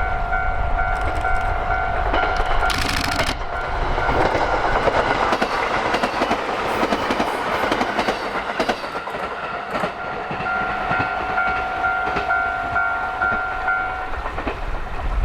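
A JR East 205 series electric train passes with wheels clattering over rail joints; the rushing noise is loudest through the middle. A steady, pulsing two-tone warning signal, typical of a Japanese level crossing alarm, sounds at the start and again in the second half.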